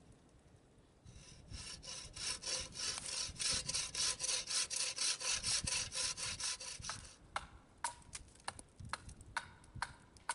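Hand saw cutting green oak in quick, even strokes, about five a second, for some six seconds. It stops, and a few separate sharp knocks follow near the end.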